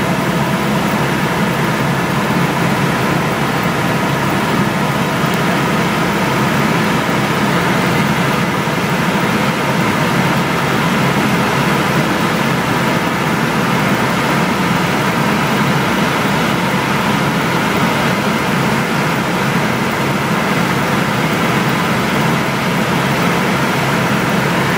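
Loud, steady mechanical drone with a low hum, unchanging throughout.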